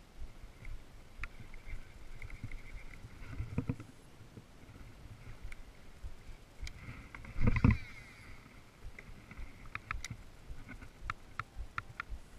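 Water lapping and knocking against the hull of a small boat on a lake, in irregular low pulses, with a louder short splash-like burst a little past halfway. A few sharp clicks come near the end.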